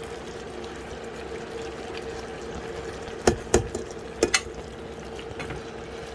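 Pot of chicken stew simmering on the stove with a steady bubbling, over a steady hum. Four sharp knocks, about three to four and a half seconds in, sound like a utensil striking the pot.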